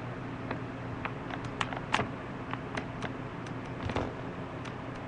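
Two small dogs wrestling on a bed: scattered soft clicks and rustles from their play, the sharpest about two seconds in and a few more around four seconds, over a steady low hum.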